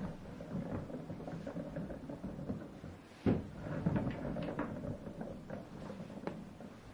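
Irregular light knocks and clicks from hard objects being handled, with one sharper knock about three seconds in.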